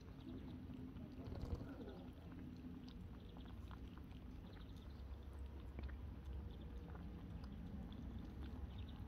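Kittens lapping milk from a plate: many faint, rapid wet ticks of small tongues, over a steady low rumble.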